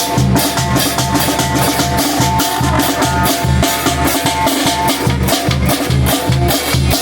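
Oaxacan brass band (banda de viento) playing: a steady bass-drum and snare beat of about two beats a second under low bass-line notes and held melody notes, which break off about five seconds in while the beat carries on.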